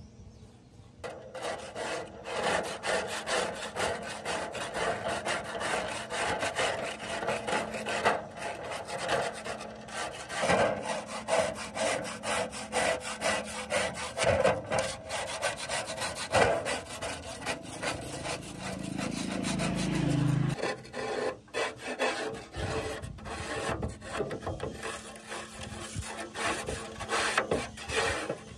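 Rapid back-and-forth scraping strokes of an abrasive worked by hand, starting about a second in and running on steadily, with a brief low hum near two-thirds of the way through.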